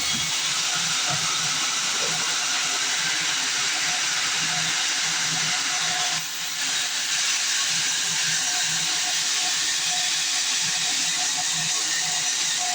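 Band sawmill cutting through a log, a steady hissing noise of the blade in the wood with a brief dip about six seconds in.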